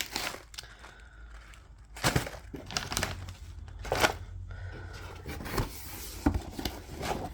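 Handling of packaged candy: scattered short rustles and knocks, the sharpest about two, four and five and a half seconds in.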